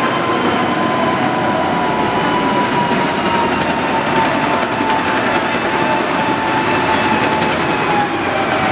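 A tracked tank driving slowly on a paved street: engine running and steel tracks clattering, with a steady whining squeal that falls slowly in pitch.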